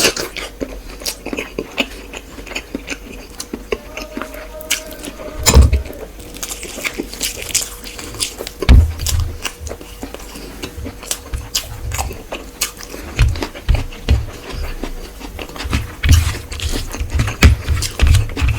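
Close-miked eating of rice and fish curry: steady wet chewing, smacking and biting clicks. Two heavy thumps land about five and a half and nine seconds in, and a faint steady hum runs underneath.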